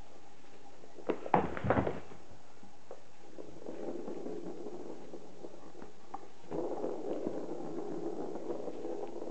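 Plastic ball rolling round the track of a circular cat track-and-scratcher toy as a kitten bats it, a steady rolling rattle that grows louder about two-thirds of the way in. A few sharp knocks of the ball against the track come about a second in.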